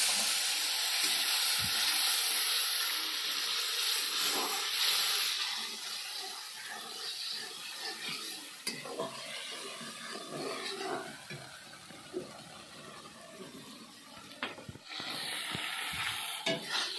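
Wet ground masala paste sizzling loudly in hot oil in a steel kadhai, the hiss dying down after about five seconds as it fries. A steel spatula then stirs and scrapes the paste against the pan, and the sizzling picks up again briefly near the end.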